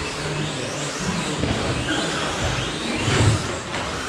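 1/10-scale electric short course RC trucks racing, their motors whining up and down in pitch as they accelerate and slow, with a low thump about three seconds in.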